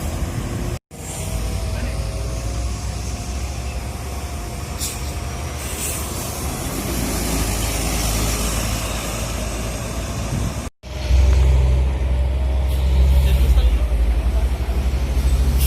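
Heavy road traffic with buses and trucks passing, their diesel engines rumbling under the noise of tyres. The sound cuts out briefly twice, and after the second cut a close, louder diesel engine rumble takes over.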